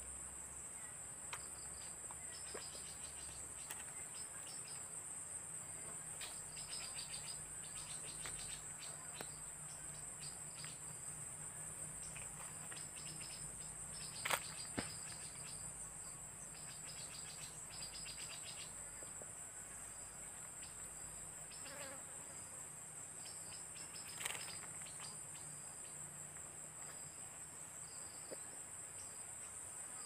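Forest insect chorus: a steady, high-pitched shrill that runs on unbroken, with a second insect's pulsed trills coming and going through the middle of the stretch. A few sharp clicks stand out, the loudest about halfway through and another near the end.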